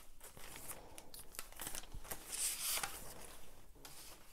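Paper and craft materials being handled on a table: faint rustling and light taps, with a louder paper swish about two seconds in.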